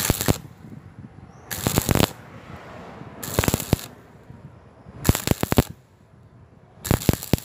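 Stick-welding arc on thin square tube, struck and broken in short crackling bursts about every second and a half, five times. This start-stop stitching of the weld is a way to keep from burning through thin-walled tube.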